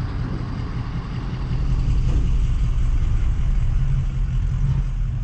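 Low, steady rumble of a vehicle engine idling.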